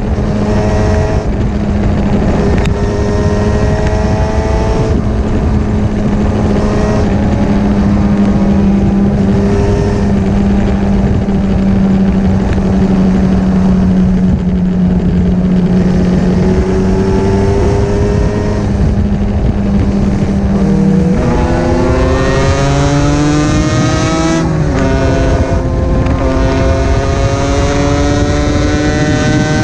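Two-stroke sports motorcycle engine heard from on board at riding speed, over steady wind noise. It holds a steady pitch for a long stretch, then from about two-thirds of the way in climbs in revs through several gear changes.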